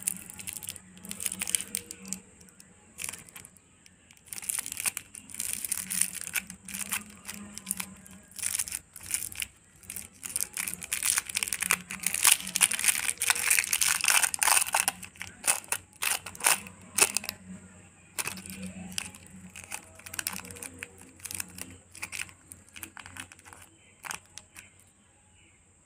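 Shiny cellophane wrapper of a Nioks butterscotch candy crinkling as fingers twist and pull it open, a dense run of sharp crackles that is loudest about halfway through. It gives way to softer rustling near the end as the inner paper wrapper is peeled off the candy.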